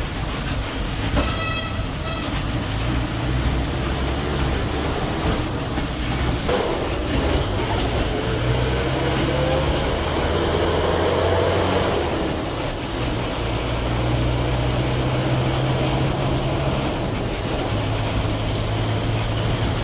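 Bus engine running and road noise heard from inside a moving bus, the engine's low drone shifting in pitch a few times as it speeds up and slows.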